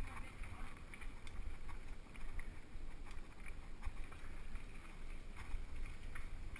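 Mountain bike riding down a dirt woodland trail: wind rumble on the camera microphone over tyre noise, with scattered small clicks and knocks from the bike over bumps.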